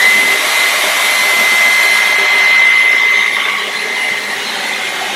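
Cordless stick vacuum running at full power while sucking up spilled flour: a steady rush of air with a constant high whine.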